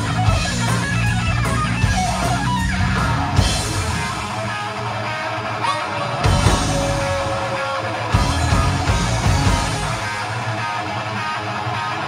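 Live heavy rock band playing through a PA: distorted electric guitars, bass guitar and drum kit, with a long held note near the middle.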